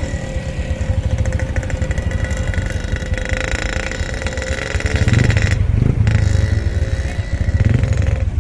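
A boat's motor running steadily with a fast, low chugging and a steady hum, growing louder about five seconds in.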